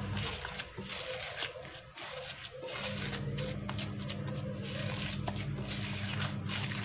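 A hand rubbing and squeezing damp semolina dough in a glass bowl, a repeated soft gritty rustle as the milk is worked into the semolina. A low steady hum runs underneath and stops for about two seconds near the start.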